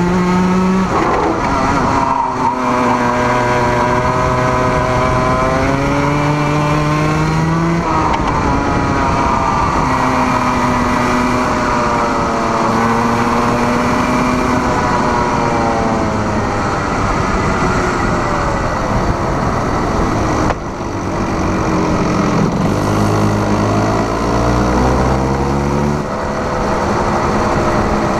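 Racing kart engine recorded onboard, revving up along the straights and dropping off sharply as the driver lifts for corners, about four times.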